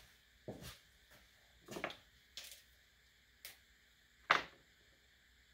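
A few faint, scattered clicks and knocks, with one louder knock about four seconds in: tools and a pencil being handled while a polyurethane plow cutting edge is measured and marked on a workbench.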